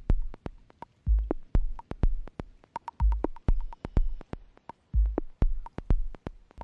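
Electronic soundtrack music: a sparse beat of low kick thumps and sharp clicks, dotted with short high blips.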